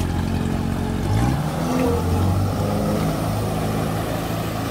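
Jet ski engine revving up as the craft pulls away across the water: the pitch rises about a second in, then holds steady at speed.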